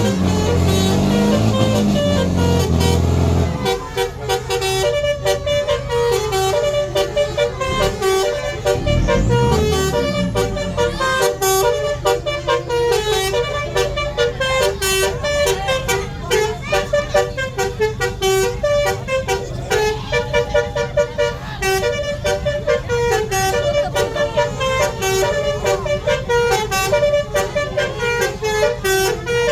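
Bus 'basuri' telolet horn playing a fast tune of short, stepping notes over a steady low hum. The first few seconds hold louder, lower tones before the quick melody starts.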